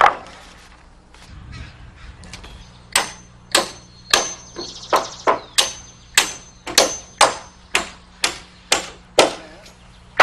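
Framing hammer driving nails into roof rafters and blocking: a steady run of about a dozen blows, roughly two a second, each with a short metallic ring, with single blows at the very start and end.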